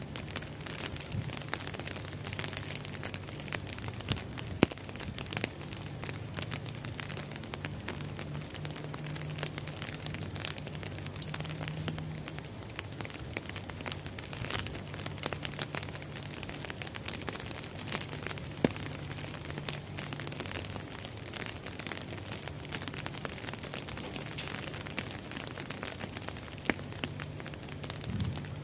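Rain pattering on the glass enclosure: a dense, even patter of drop hits with a few louder ones, over a steady low hum.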